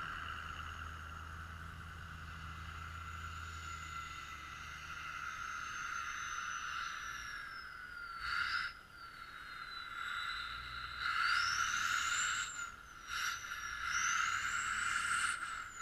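Ford F-350 pickup's engine rumbling as the truck drives off through deep snow, fading out over the first five seconds. A steady high hum and a thin tone that slowly falls, then rises again, carry on throughout, with a few brief rushing noises in the second half.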